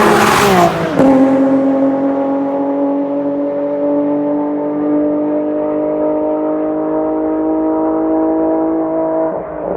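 Infiniti G37S's 3.7-litre VQ37VHR V6 through long-tube headers and a Greddy RS single-exit exhaust: a loud rev that falls off about a second in, then the engine held at steady high revs for about eight seconds before dropping near the end.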